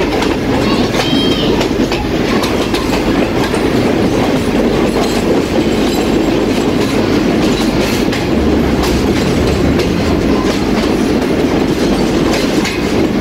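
Passenger train's coaches running slowly into a brick-lined tunnel: a steady rumble of wheels on rails, with scattered clicks as the wheels pass over the track.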